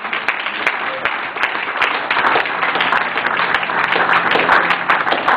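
Church congregation applauding, a dense patter of many hands clapping that grows fuller about two seconds in.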